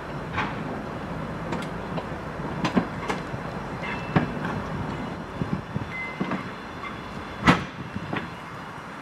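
Unpowered DR1A diesel-train cars being towed slowly past on old track: wheels rumbling and knocking irregularly over rail joints, with brief faint squeals. A loud clank comes about seven and a half seconds in.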